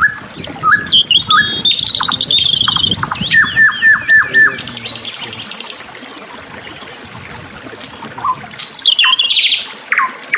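A songbird singing varied phrases of whistled notes, fast trills and runs of repeated notes. There is a pause of about two seconds midway, then another phrase.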